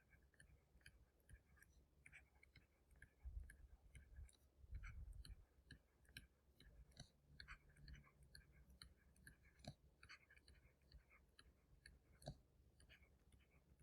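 Near silence with faint scratches and ticks of handwriting as the same figure is written down a table column again and again.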